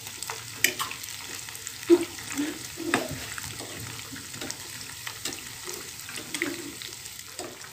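Breadcrumbed macaroni balls deep-frying in hot oil, a steady bubbling sizzle. Metal tongs turning the balls add scattered sharp clicks and taps against the pot, the loudest about two seconds in.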